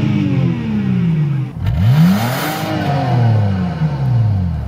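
Car engine being revved with no load: the pitch falls away from one rev, then a quick second rev climbs about two seconds in and slowly winds back down.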